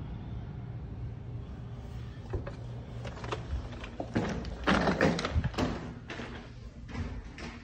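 Hotel room door being unlatched and pushed open: clicks of the lock and handle, then a louder clatter as the door swings open, over a steady low hum.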